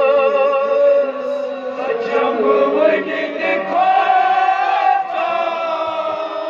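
Men chanting a noha, a Muharram lament, with a lead voice on a microphone and the group of mourners singing along, the held notes wavering.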